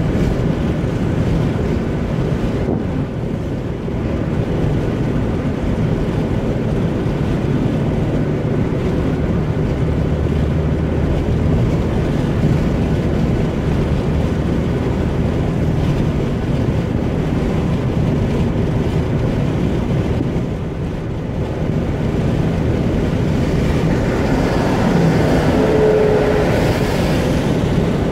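Steady road and tyre noise with engine hum, heard from inside a car cabin cruising on a motorway. Near the end it grows a little louder and brighter as the car draws alongside a lorry.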